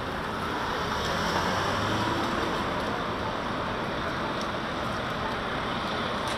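City street traffic noise: a steady wash of passing and idling cars.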